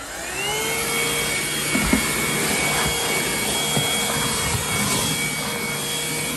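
Bissell Pet Hair Eraser vacuum cleaner motor spinning up, its whine rising in pitch and getting louder over the first second, then running steadily with a high whine over a rushing hiss of air.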